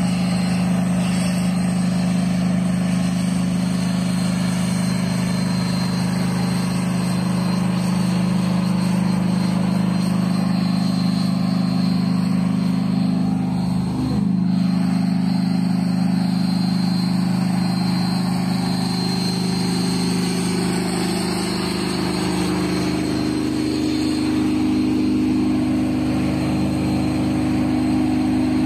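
A tank's engine running steadily, with a brief break about halfway through; in the last several seconds the engine note steps up to a higher steady pitch.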